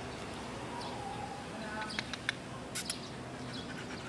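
Siberian huskies whining faintly at a cage gate, with a few short high whines and several sharp clicks about two to three seconds in.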